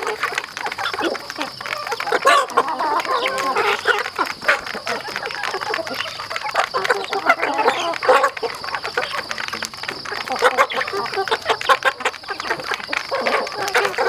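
A flock of chickens feeding together at a trough: many quick pecking clicks against the trough, with clucking and soft calls throughout.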